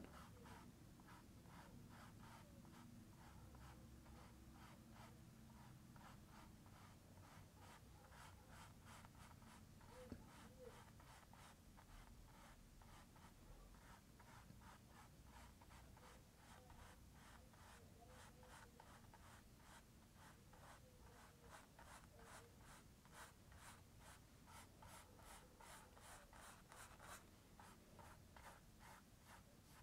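Faint, repeated strokes of a paintbrush laying oil paint onto canvas, quickening to a few strokes a second in the second half, with one small click about ten seconds in.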